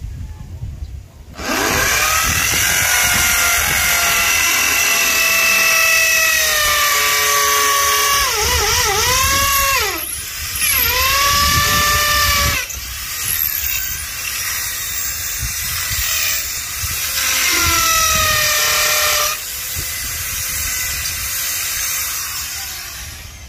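Handheld electric drill running in long bursts while drilling at a window grill, its motor whine sagging and recovering in pitch as it bites under load. It starts about a second and a half in, breaks off briefly twice (around ten and thirteen seconds in), and has another loud burst a little later.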